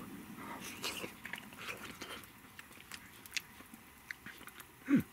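A person eating a hot spoonful of curry: soft mouth and chewing noises with small clicks of the wooden spoon and pot. About five seconds in comes a short, low, satisfied 'mm'.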